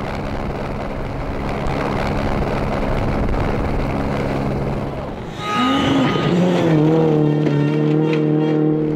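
Rally car engine running hard at speed. About five seconds in the note drops briefly, then rises and settles into a steady, higher engine note.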